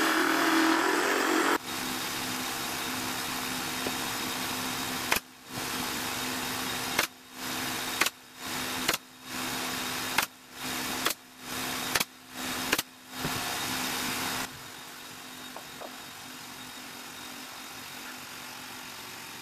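A homemade drum sander's spinning sanding drum grinding a small piece of wood, then cutting to a steady motor hum over which a nail gun fires about eight times, roughly once a second. Near the end only a quieter steady hum remains.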